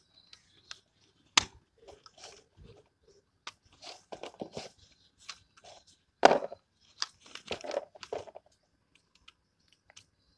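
A folded tripod being slid out of its black cloth carry bag and handled: rustling of the fabric with scattered clicks and knocks of the tripod's parts, the sharpest about a second and a half in and the loudest about six seconds in.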